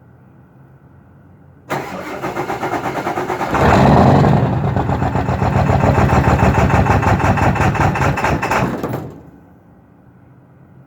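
2002 Ford F-350's 7.3 Power Stroke V8 turbo-diesel being started. The starter cranks for about two seconds, then the engine fires and runs louder with a steady pulsing beat, cutting off about nine seconds in. This is a hard start blamed on a bad glow plug relay.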